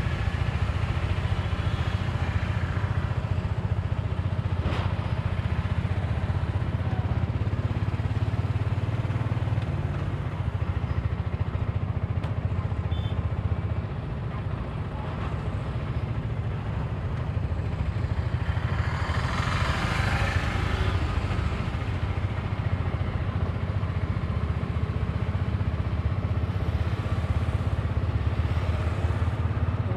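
Auto-rickshaw's small engine running steadily while driving in traffic, heard from inside the open cabin with road noise. About two-thirds of the way through, a louder swell of road noise rises and falls over a couple of seconds.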